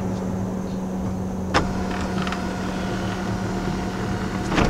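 Power moonroof of a 2019 Honda Ridgeline sliding shut: a click about a second and a half in, then a steady electric motor whine, stopping with another click near the end. A steady low hum runs underneath.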